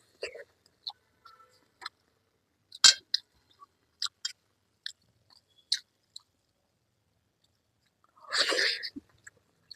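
Close-up eating sounds: chewing, with scattered wet clicks and smacks and one sharp louder click about three seconds in. A louder, noisier burst lasts under a second near the end.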